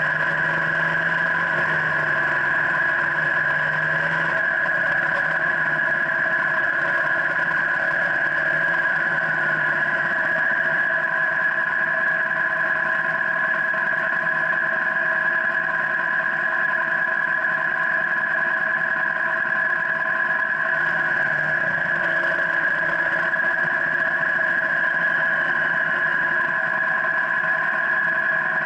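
BMW R1200GS LC's liquid-cooled 1,170 cc boxer twin running at a steady, unchanging engine speed under light load while the new bike is being run in, heard close up at the engine guard.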